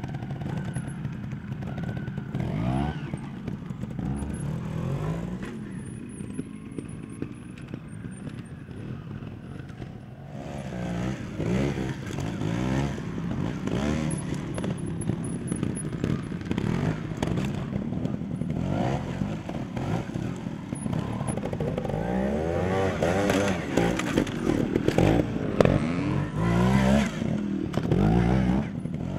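Trials motorcycle engine revved up and down in short blips of the throttle, over and over, quieter early on and louder in the second half.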